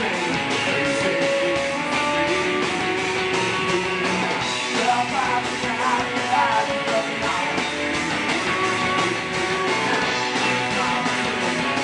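Punk rock band playing live: electric guitar, bass and drums with a fast, steady beat.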